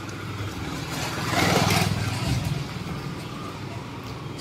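A motor vehicle passing close by on the street, its engine running with a low steady throb that swells to a peak about a second and a half in and then fades.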